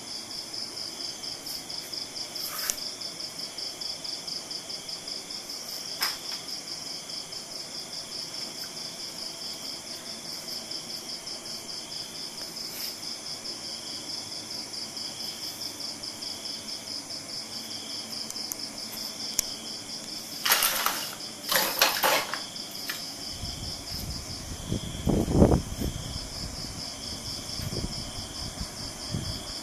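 Crickets chirping steadily: a fast, even, high-pitched pulsing with a second, slower pulsing insect call beneath it. About two-thirds of the way through come two short rustling noises, then a few low bumps.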